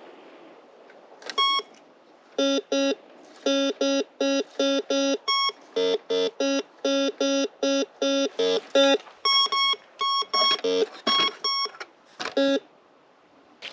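Metal detector sounding a quick run of short electronic beeps, about two a second, switching between a low tone and a higher tone, which stops about a second before the end.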